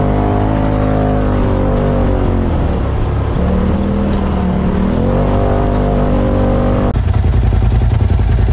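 Side-by-side UTV engine running on a sandy trail. It eases off about two and a half seconds in and picks back up around five seconds. Near the end a sudden cut brings in a closer engine running with a fast, even throb.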